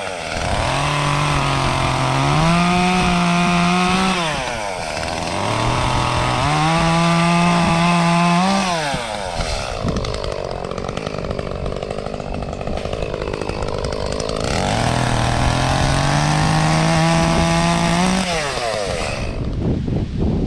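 Echo CS-352 two-stroke chainsaw running at high throttle while cutting. Its pitch rises and sags again and again, with a rougher, noisier stretch in the middle, and the engine drops off near the end.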